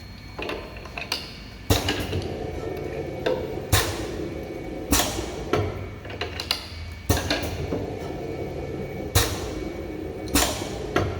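Semi-automatic two-head lip gloss and mascara filling machine running fill cycles on its push button: sharp mechanical clacks of the filling heads, each trailed by a short rush of noise, about every one to two seconds, over a faint steady hum.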